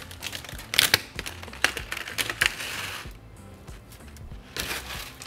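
Plastic packaging crinkling and rustling in several short bursts as dried chow mein noodles are handled and dropped into a pot, over soft background music.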